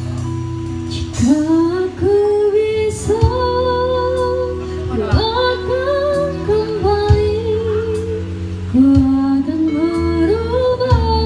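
Live pop song: a woman singing into a microphone over acoustic guitars, her voice coming in about a second in with sliding, held notes.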